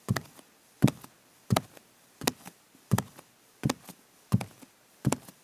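A woman's bare feet walking on a wooden floor at a steady pace, about eight steps, each a soft thud followed by a lighter second touch.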